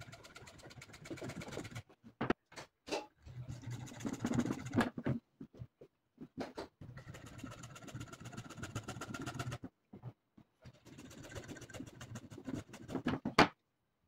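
Hand hacksaw cutting through half-inch PVC pipe: quick rasping back-and-forth strokes in four bouts with short pauses between, ending in a sharp crack as the cut goes through near the end.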